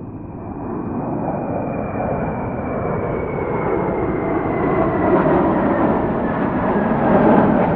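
Airplane approaching, its engine noise a steady rush that grows louder, with a thin high whine that slowly falls in pitch.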